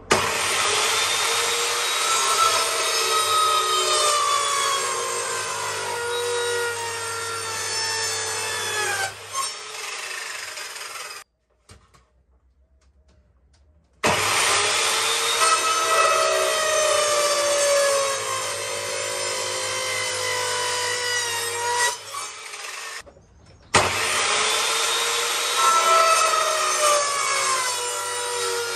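Handheld electric planer running over pallet-wood boards in three passes, its whine sinking slowly in pitch during each pass. It stops for a couple of seconds between passes.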